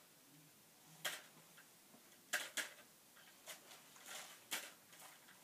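Faint handling noises of jelly beans and their box being picked through by hand: about six short clicks and rustles, spaced irregularly about a second apart.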